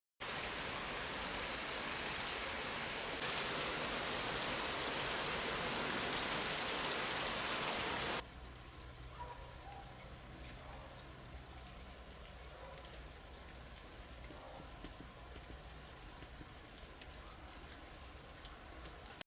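Steady rushing noise of strong wind on the nest camera's microphone. It is loud for the first eight seconds, then drops suddenly to a quieter hiss with faint small ticks.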